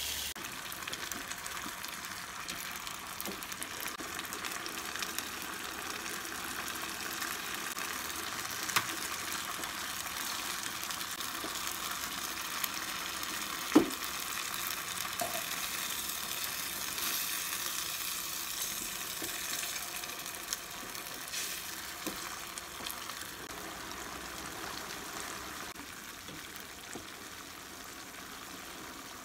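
Sardines in chili-tomato sambal sizzling in a non-stick frying pan while being stirred with a spatula, with a few sharp knocks of the spatula against the pan, the loudest about 14 seconds in. The sizzle eases a little near the end.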